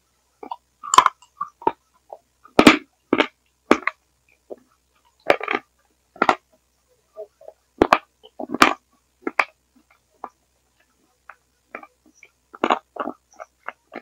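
Close-miked eating sounds: chewing, smacking and wet mouth noises in short, sharp bursts at irregular intervals. They come through a headset microphone the uploader blames for turning the ASMR into a gurgling like a dying frog.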